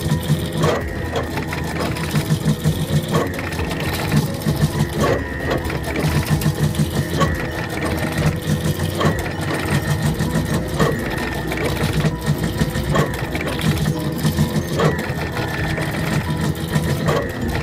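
Surface-mount pick-and-place machine running as it places parts on circuit boards: fast pulsing motor whir in bursts, with a sharp click every second or two.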